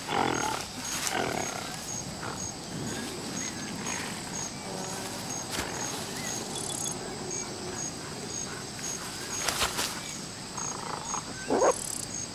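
Young mountain gorillas play-wrestling and calling, with short vocal calls at the start and two more near the end. Under them runs a steady high pulsing chirp, about two a second.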